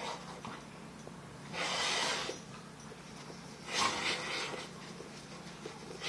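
English Bull Terrier breathing hard through its nose while pulling on a tug toy, with two loud hissy huffs about two and four seconds in.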